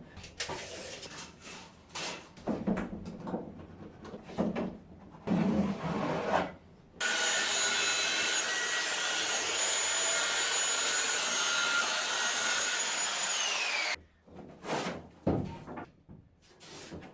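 Rubbing and scraping of wood and building materials being handled. Then a power tool runs steadily for about seven seconds, its pitch dropping as it winds down. A few knocks and scrapes follow.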